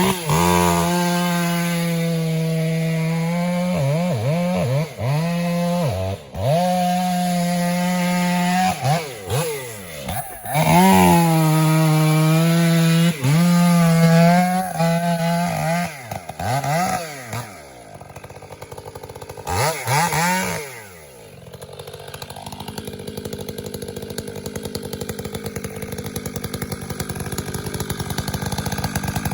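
Two-stroke chainsaw running at high revs, its pitch repeatedly dipping and climbing back as the throttle is let off and opened again. After about twenty seconds it gives way to a quieter, steady running sound.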